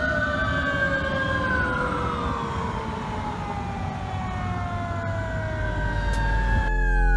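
Fire engine siren wailing in slow rising and falling sweeps as the truck drives away. Near the end it cuts abruptly to a closer fire truck, its engine running loud and low under the siren.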